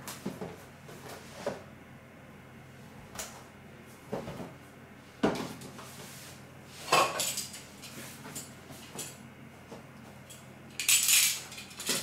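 Scattered light knocks and clatter of a plastic-framed HEPA cabin filter being handled, set down on a wooden floor and fitted against a plastic box fan. The sharpest knock comes about five seconds in, and there is a brief scraping slide near the end.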